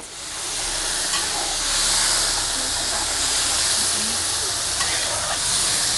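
Small pieces of beef frying in hot fat in a kazan: a steady, loud sizzle that swells over the first second and then holds even.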